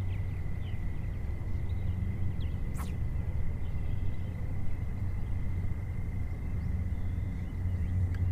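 Steady low hum with a thin, high, steady whine, the sound of a small motor running, with faint bird chirps and one sharp click about three seconds in.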